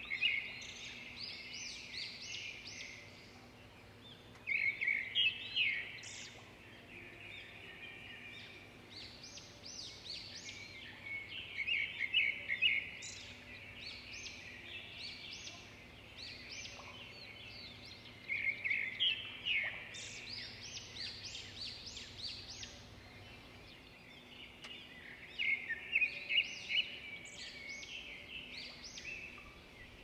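Caged budgerigars chirping and chattering in bouts of quick, high chirps every few seconds, with softer twittering in between.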